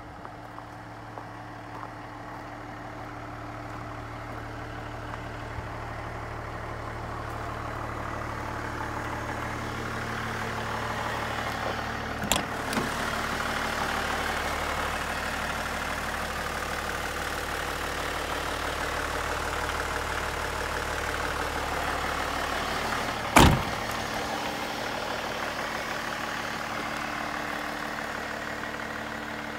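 Hino Liesse II's 1HD straight-six diesel idling steadily. A sharp click about twelve seconds in, and a single loud door-slam thump about three-quarters of the way through.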